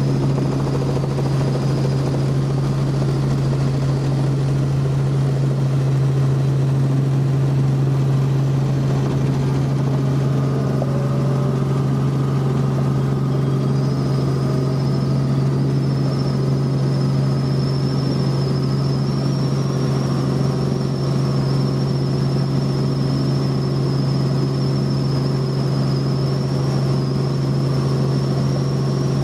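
Helicopter running steadily, heard from on board: a constant low drone with a thin high whine that comes in about halfway through.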